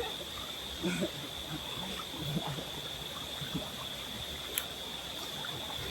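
River water running, with a steady high-pitched whine over it. A few faint voices come through, and there is one sharp click about four and a half seconds in.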